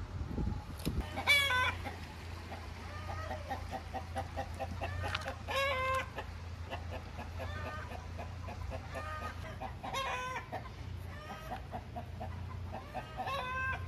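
Chickens clucking, with a louder drawn-out call about every four seconds.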